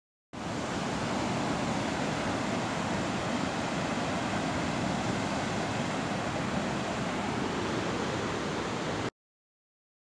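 Steady rushing of a large waterfall in heavy flow. It cuts in just after the start and cuts off abruptly about a second before the end.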